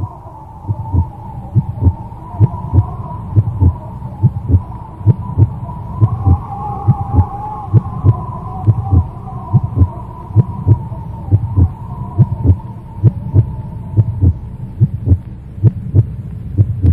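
Heartbeat sound effect: regular low thumps, about two a second, over a steady wavering hum.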